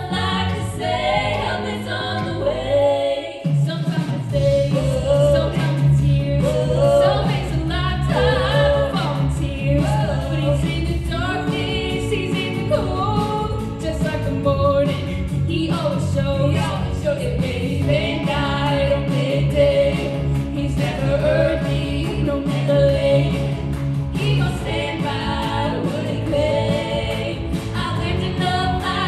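Three female voices singing in harmony through stage microphones, with a steady low bass part coming in underneath about three seconds in.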